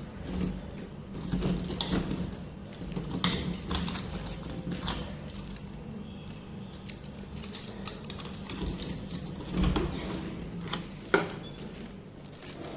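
Scattered clicks, knocks and small clatters of things being handled in a small room, over a low steady hum.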